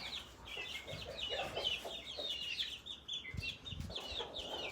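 A flock of young backyard chickens peeping and clucking, many short high calls overlapping throughout. There are a few low thumps about three and a half seconds in.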